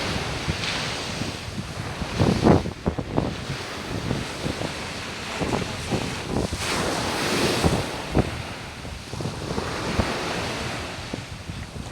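Sea waves washing onto a beach, the surf rising and falling every few seconds, with wind gusting on the microphone.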